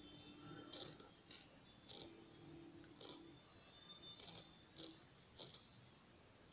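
Very faint, irregular soft ticks and rustles of a metal crochet hook pulling cotton thread through stitches, several a second at times.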